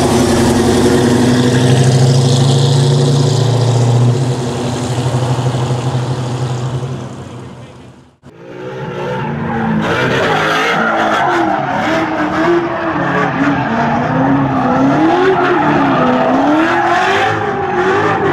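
Restomodded 1967 Ford Mustang Fastback's 393 Windsor stroker V8, with headers and a 3-inch exhaust, running steadily as the car pulls away, fading out about eight seconds in. After a brief gap, a different sound follows with a pitch that rises and falls again and again.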